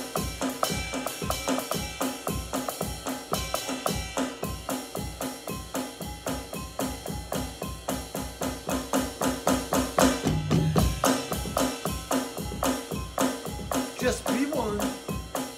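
Drum kit played in a fast, steady groove, with bass drum about four beats a second under snare and cymbal hits. There is a heavier low hit about ten seconds in.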